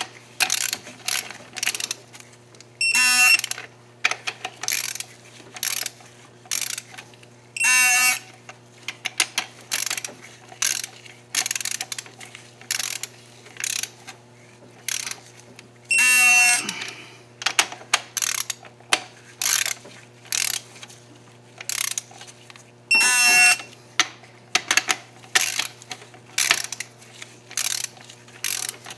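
A ratchet clicking in runs as cylinder head bolts are torqued. About four times, a digital torque wrench gives a buzzing beep, the signal that the 22 ft-lb target torque has been reached.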